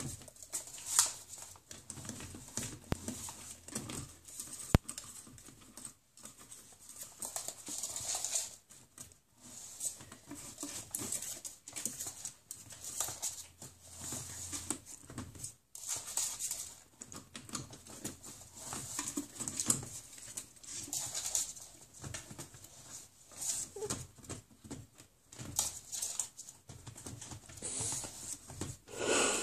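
A ferret tugging at a bag caught in a bedside drawer: irregular rustling and scrabbling, with scattered sharp clicks and a distinct knock a little under five seconds in.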